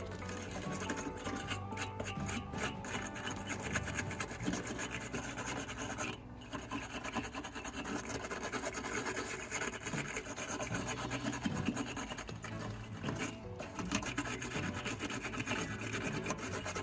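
Wire battery-terminal brush scrubbing corrosion off battery terminals and cable clamps, a continuous rasping scrub with short pauses about six and thirteen seconds in.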